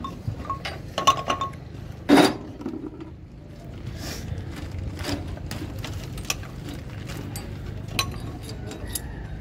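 Metal clinking and knocking of a wrench and parts being worked on a diesel truck engine's fuel filter housing. Scattered sharp clicks run throughout, with a ringing clink about a second in and a heavier knock just after two seconds.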